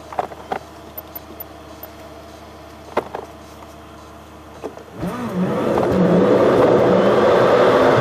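A car heard from inside the cabin, idling quietly at a stop with a low steady hum and a few faint clicks. About five seconds in the sound changes abruptly to the much louder engine and road noise of the car driving along.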